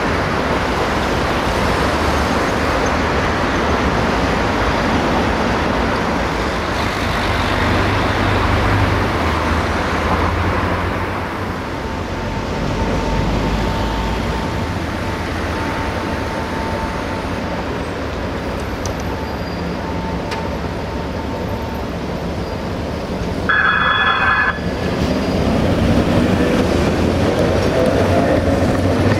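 Tatra T4D tram with its B4D trailer running on the track, with a steady whine through the middle. About three-quarters of the way through, the tram's warning bell rings loudly for about a second. Then the traction motors whine up in pitch as the tram pulls away past the microphone.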